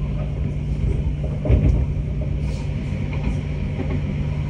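Steady rumble of a moving Dutch NS Sprinter electric commuter train heard from inside the carriage, wheels on rails with a steady hum under it. A louder thump comes about a second and a half in.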